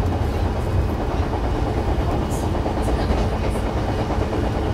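Running noise of a JR East E129 series electric multiple unit heard from inside the passenger car: a steady low rumble of the wheels on the rails while the train is under way.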